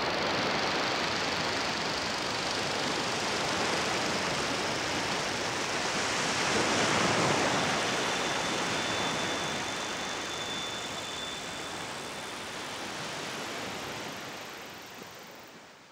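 Waves breaking on a sand beach: a steady wash of surf that swells about seven seconds in, then fades away at the end.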